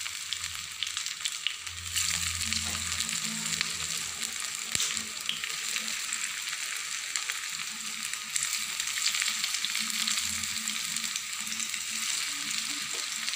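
Avil (poha) vada patties sizzling as they deep-fry in hot coconut oil: a steady crackling hiss that grows a little louder about two seconds in as more patties go into the pan.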